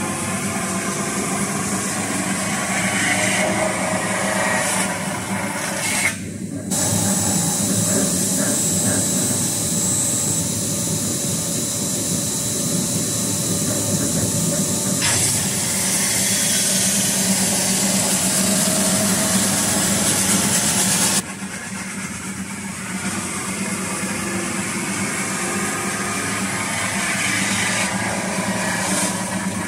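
CNC metal spinning machine at work: the spindle turns the sheet-metal blank on its mandrel while the forming roller presses along it, giving a steady hissing rush over a low hum. The noise breaks off briefly about six seconds in, and about twenty-one seconds in it drops to a quieter level.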